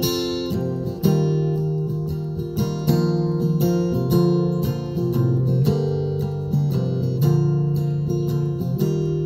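Acoustic guitar strumming chords in a steady rhythm, with no singing.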